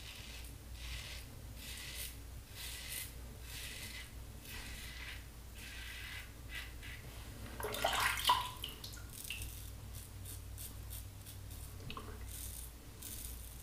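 Double-edge safety razor (Fine Marvel with a Personna blade) scraping through lather and stubble in a run of short strokes. About eight seconds in, a louder brief sound stands out.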